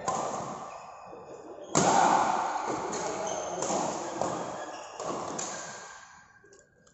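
Badminton rackets hitting the shuttlecock in a rally: a string of sharp hits a second or so apart, the loudest about two seconds in, each trailing off in the hall's echo.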